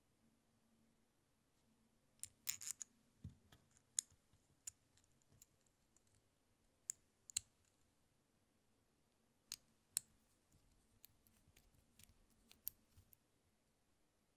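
Faint, irregular clicks and ticks of small plastic and metal scale-model motorcycle parts being handled and fitted together: drive chain, sprocket, swingarm and brake disc. A quick cluster of clicks comes a couple of seconds in, then scattered single ones until near the end.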